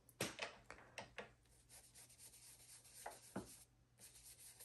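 Small ink blending brush rubbing brown Distress Ink onto paper in short, faint scratchy strokes, with a quicker run of strokes near the end.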